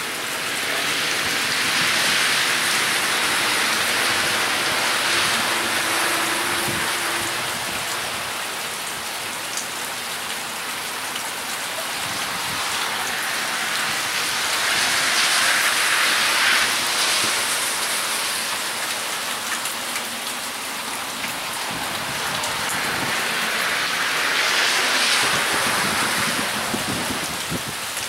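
Heavy rain pouring steadily onto a wet road and grass, a dense hiss that swells louder and eases off three times.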